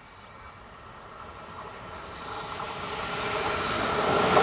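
Trenitalia electric locomotive hauling a regional passenger train on approach, its rumble and rail noise growing steadily louder, with a steady whine over it.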